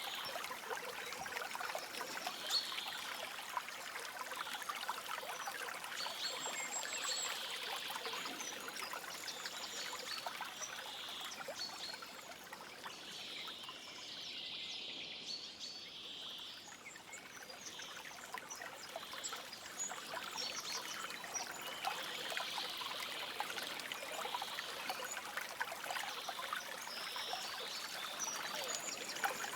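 Shallow stream water flowing and trickling, a steady babble of small splashes, with a few faint high bird chirps.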